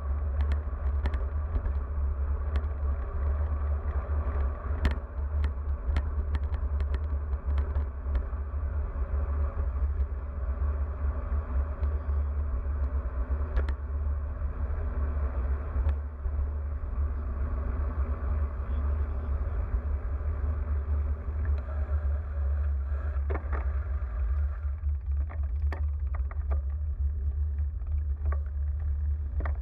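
Wind rumbling on a moving bicycle's handlebar-mounted action camera, with tyre and road noise and scattered sharp clicks and rattles as the bike runs over bumps in the pavement.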